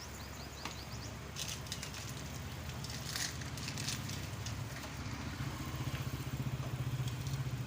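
A motorcycle engine idling steadily, a low pulsing hum that gets slightly louder in the last couple of seconds.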